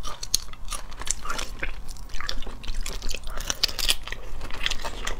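Close-miked chewing and crunching of cooked shellfish, with many irregular sharp cracks of shell being bitten and pulled apart by hand.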